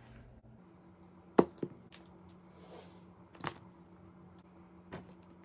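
Faint steady hum with about five short sharp clicks and taps scattered through it, the loudest about a second and a half in.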